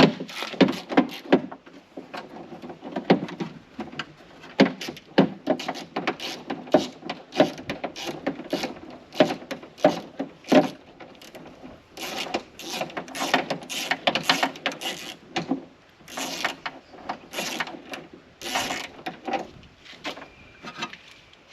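Ratchet and socket clicking in irregular runs with sharp knocks, undoing the last 10 mm nut that holds a car's outer door handle inside the door.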